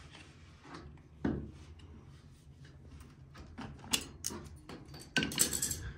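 Metal clicking and scraping as a hook-type cotter pin puller works a cotter pin out of an elevator brake shoe's pivot pin, with a dull knock about a second in and the loudest cluster of scraping clicks near the end. A steady low hum runs underneath.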